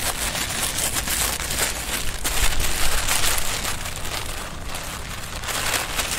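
Clear plastic bag crinkling and rustling with many irregular sharp crackles as it is handled and opened.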